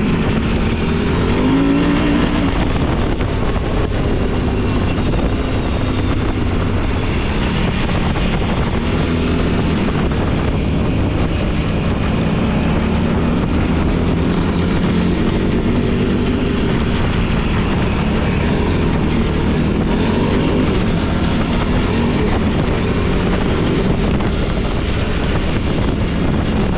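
Off-road vehicle engine running under throttle while riding, its pitch rising and falling as the rider works the throttle, with wind noise over it.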